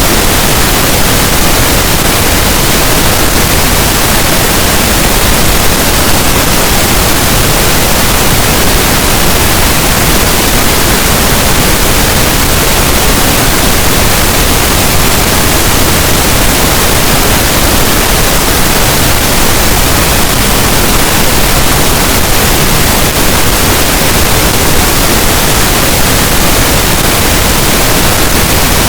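Continuous pink noise: a steady, even hiss spread across the whole range, loud and unchanging.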